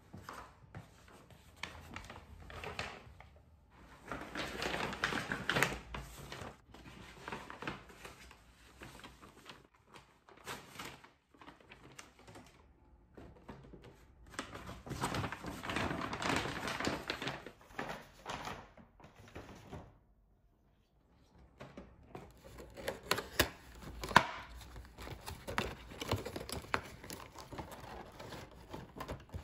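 Handling of shopping and packaging: a paper shopping bag rustles in long stretches as things are taken out of it, then a cardboard box and its clear plastic clamshell are opened, with crinkling and small clicks and one sharper click.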